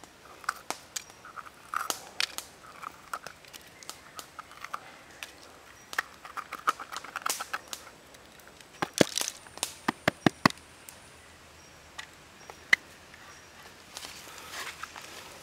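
Red bell pepper being hollowed out by hand: small crisp snaps and squeaks of the flesh and seed core breaking away, with a quick run of sharp clicks and taps about nine to ten seconds in.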